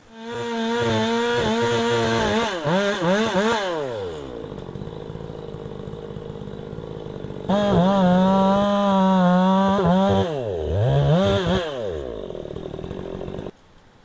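Chainsaw running at high revs, falling back toward idle a few seconds in, then revved up again about halfway through. Its pitch dips and recovers a couple of times before the sound cuts off abruptly near the end.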